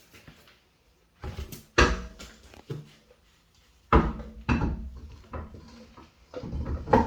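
Heavy knocks and clunks as a car's road wheel is handled and fitted back onto the hub. There are three loud knocks, about two, four and seven seconds in, with lighter clanks between them.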